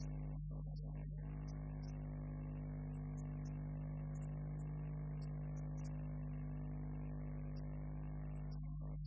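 Steady electrical mains hum and buzz: a constant low drone with a flat ladder of overtones that holds one pitch throughout. The upper overtones cut in and out about a second in and again near the end.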